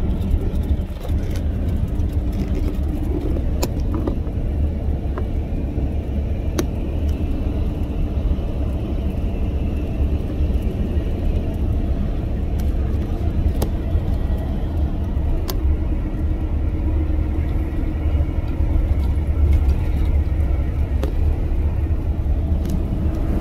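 Steady low rumble of a vehicle under way, with a few faint clicks.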